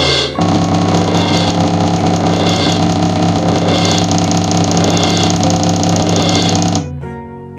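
Engine-like synthetic sound effect: a steady pitched drone with a hiss that swells about once a second, starting suddenly and cutting off suddenly after about six and a half seconds.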